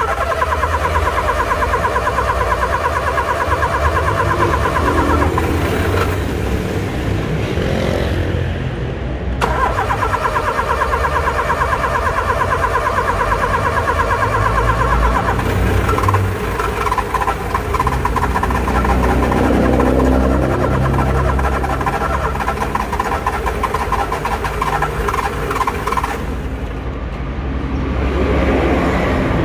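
Car starter making a rapid "tec tec" clicking chatter as the engine is cranked but does not start, a starting problem. The clicking comes in long spells with a break around six to nine seconds in.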